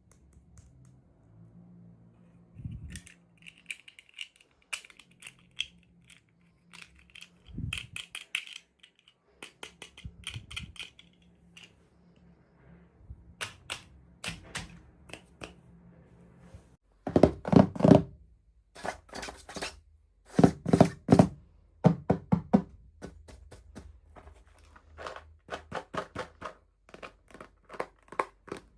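Small plastic toy pieces and packaging being handled during an unboxing: a long run of sharp clicks, taps and knocks, with a raspy crinkling rustle through the first third and a few louder clusters of knocks a little past the middle.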